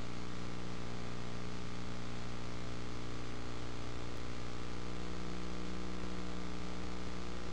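Steady electrical hum over a constant hiss, unchanging throughout: the background noise of a film transfer with no real soundtrack, not the aircraft itself.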